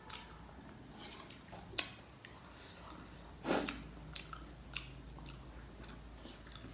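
Close-up eating sounds: a person chewing and biting food, with scattered small clicks and a louder sharp sound about three and a half seconds in.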